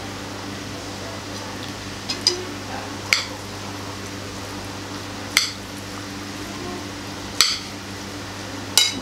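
Metal forks clinking against a bowl as noodles are tossed and lifted, about five sharp clinks one to two seconds apart, over a steady low background hum.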